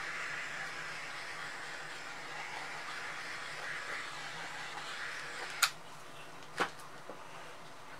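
Handheld heat tool running with a steady rushing hiss as it warms wet acrylic paint, cutting off about five and a half seconds in. Two sharp clicks follow, about a second apart, with a fainter one after them.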